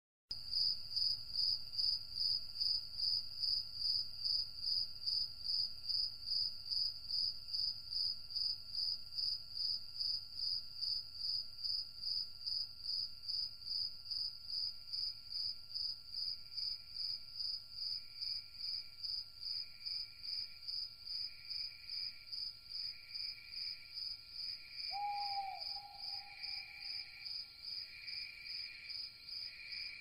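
Crickets chirping in a steady, even rhythm, about two high chirps a second. From about halfway a second, lower-pitched insect pulses in more slowly and grows louder. About 25 seconds in there is one short call that dips in pitch, then holds.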